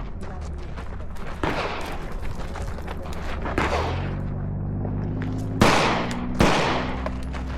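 Airsoft pistol shots fired during an IDPA stage: about five sharp cracks at irregular intervals, each with a short ringing tail, the loudest two close together near the end. A steady low hum runs underneath.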